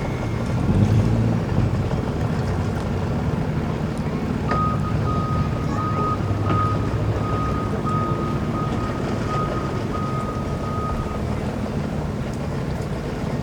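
Boat and vehicle engines idling with a steady low rumble, wind on the microphone. A high, steady electronic beep sounds over and over for several seconds in the middle, then stops.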